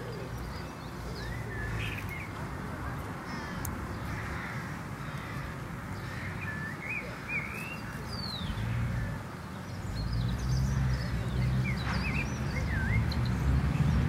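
Wild birds chirping and calling, short quick notes scattered through, over a steady low rumble that grows louder in the second half.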